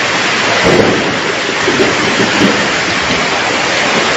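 Heavy rain pouring down, a loud steady hiss. About half a second in, a low rumble comes in under it and lasts a few seconds.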